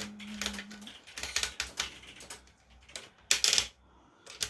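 Hard plastic clicking and clattering as the levers of the hand-worked syringe control panel on a kit-built hydraulic robot arm are pushed and pulled, in irregular bursts with the loudest clatter about three seconds in. A short, steady low tone sounds during the first second.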